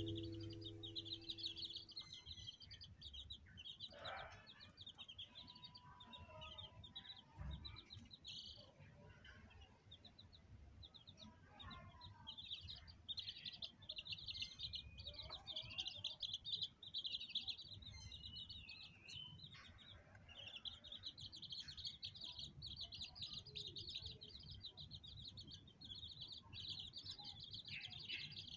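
Chicks peeping: faint, fast runs of high chirps that go on almost without a break, with a few lower, softer calls mixed in.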